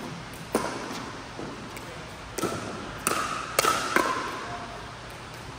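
Pickleball rally: a hollow plastic ball popping off paddles, five sharp hits, the last four in quick succession, each with a short echoing tail in an indoor court hall.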